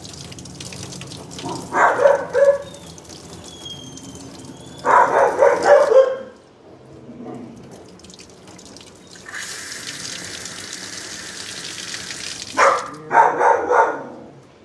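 Water running from a grooming-tub hose sprayer, with a dog barking in three short bouts: about two seconds in, around five seconds in, and near the end.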